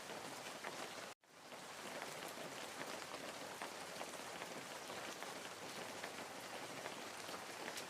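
Steady rain falling, a dense even hiss flecked with individual drop ticks. About a second in the sound cuts out abruptly for a moment and swells back in, like the seam of a looped rain recording.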